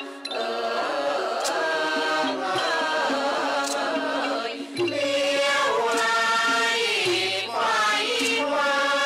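Thai classical vocal chorus singing the slow, drawn-out melody of a khon masked dance-drama song, with long wavering notes. A sharp percussion strike sounds roughly every two seconds.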